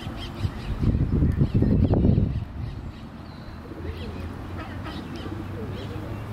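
Outdoor pond ambience with short bird calls throughout. A loud, irregular low rumble swells about a second in and fades by two and a half seconds, and a low steady hum follows.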